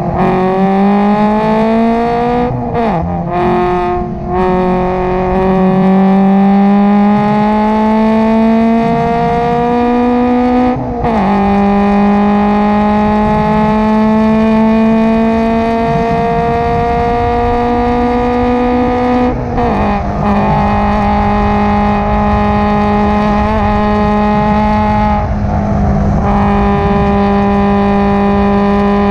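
Subaru BRZ race car's flat-four engine, with aftermarket header and single catback exhaust, heard from inside the cabin at full throttle. It climbs steadily in pitch through the gears, with three upshifts: a few seconds in, about eleven seconds in, and about twenty seconds in.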